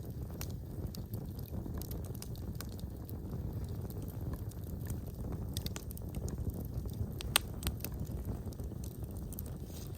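Wood fire burning in a fireplace: a steady low rumble of flames with scattered sharp crackles, and one loud pop about seven and a half seconds in.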